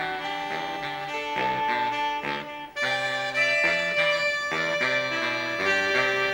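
Instrumental music led by saxophones and brass: a jazzy horn arrangement of held notes that move in steps, with a short break about three seconds in before the horns come back fuller.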